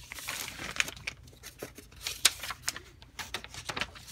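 Paper and stiff plastic sheets rustling and crinkling as they are handled, with irregular light clicks and one sharper snap a little over two seconds in.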